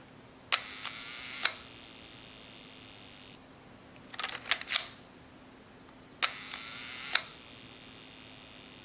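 Leica M6 shutter fired twice at a slow speed: each time a sharp click opens a steady mechanical buzz of the slow-speed escapement gear train, about a second long, ended by a second click as the shutter closes. A short run of quick clicks comes between the two releases.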